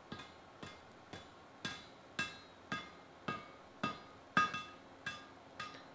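A hide mallet striking a red-hot high-carbon steel bayonet blade held against the anvil, about two steady blows a second. Each blow gives a short metallic ring: this is light straightening of the hot blade.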